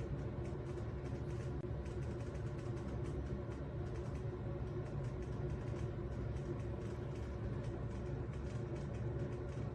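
A Kwasyo 15-tray stainless steel food dehydrator running, its twin fans giving a steady low hum.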